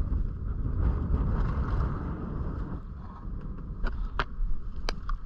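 Wind buffeting the microphone on a small fishing boat at sea, a steady low rumble, with a few sharp knocks or clicks about four to five seconds in.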